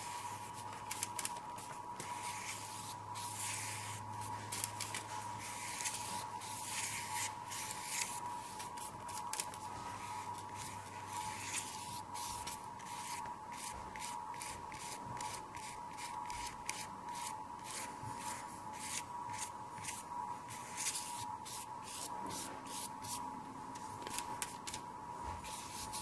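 Paintbrush bristles scratching and swishing across the sheet in quick, irregular repeated strokes, laying on acrylic paint. A steady high hum runs underneath.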